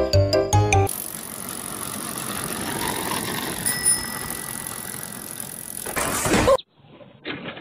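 A four-wheeled surrey pedal cart rolling along a paved path, with a steady noise haze and a thin, steady squeal for a couple of seconds midway. Near the end it tips onto its side with a loud noisy clatter. A snatch of music fills the first second.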